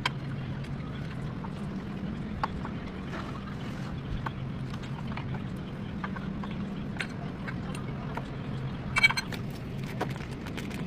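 GMC vehicle's engine running steadily, with scattered short clicks and knocks over it and a quick cluster of knocks about nine seconds in.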